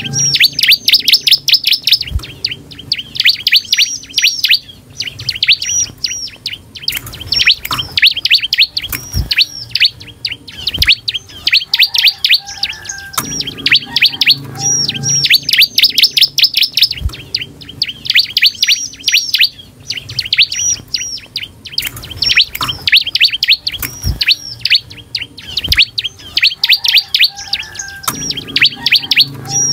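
A caged ciblek (prinia) singing persistently: rapid strings of sharp, high, down-slurred notes in bursts of two to three seconds, repeated over and over with short pauses between them. A few faint knocks come through between phrases.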